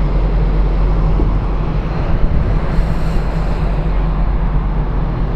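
Steady low drone of a ferry's engines and machinery, with wind rushing across the open deck.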